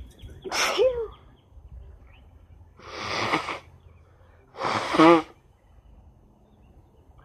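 A woman sneezing three times, about two seconds apart, each a sharp burst of breath; the first and last end in a short voiced cry, and the last is the loudest.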